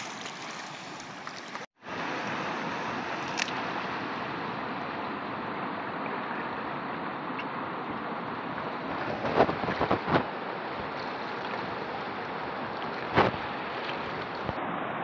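Steady rush of a fast, shallow river, with a brief dropout just under two seconds in and a few short knocks around the middle and near the end.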